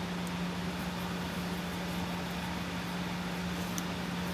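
A steady low hum over faint hiss, with a few faint light clicks from a screwdriver working a screw into a carbon-fibre helicopter frame.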